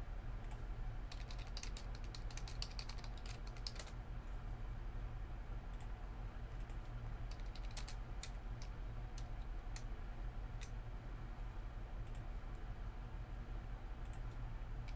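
Typing on a computer keyboard: a quick run of key clicks between about one and four seconds in, then scattered single keystrokes, over a steady low hum.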